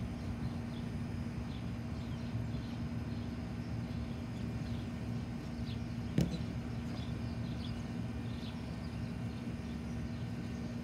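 Steady low outdoor hum with faint scattered chirps, and one sharp thump about six seconds in as a child lands a back walkover on a folding gymnastics mat.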